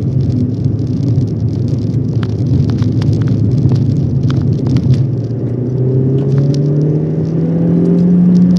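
Citroën C2 SensoDrive's engine and road noise heard from inside the cabin while driving; over the second half the engine note rises steadily as the car accelerates in gear. Scattered light rattles and clicks sound in the first half.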